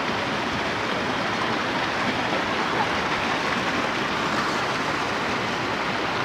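Waterfall's steady rush of falling water, an even noise that holds level without a break.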